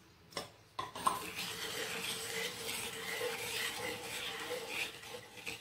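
A wooden spatula stirs sugar into hot milk in a non-stick frying pan, scraping over the pan's bottom. The stirring starts about a second in, after a couple of light knocks, with a faint steady hum underneath.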